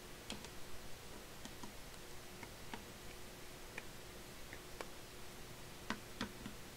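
Faint, scattered small clicks and taps as a reassembled iPhone 6 is handled and set down on a workbench, with a couple of slightly louder taps near the end.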